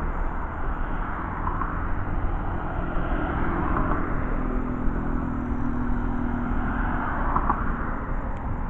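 Steady road and engine noise of a moving car heard from inside it: a continuous low rumble of tyres on the road, with a faint engine hum in the middle seconds.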